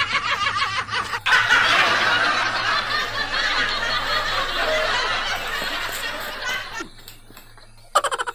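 People laughing hard: quick rhythmic ha-ha laughter, then from about a second in a louder, rougher stretch of laughter that dies away near seven seconds, and another short burst of laughter near the end.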